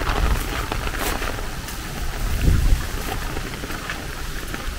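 Steady rain falling, with scattered close drop impacts. A brief low rumble comes about halfway through.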